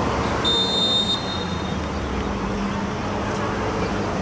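A referee's whistle blown once, a steady high blast of just over a second near the start, over steady stadium background noise.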